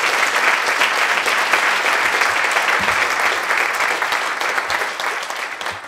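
Audience applauding, a dense, steady clapping that tapers off slightly near the end.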